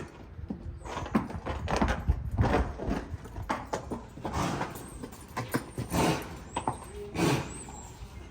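Hoofbeats of a ridden horse: irregular thuds and scuffs of its hooves on the ground as it moves.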